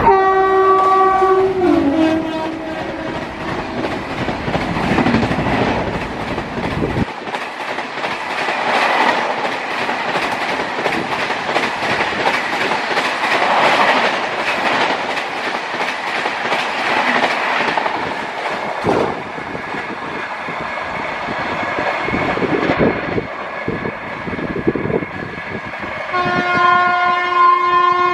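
An Indian Railways express train passing at high speed: its horn sounds at the start and drops in pitch as the locomotive goes by, then the coaches rush past with a rapid clickety-clack of wheels over rail joints. About 26 s in, a train horn starts again, held steady.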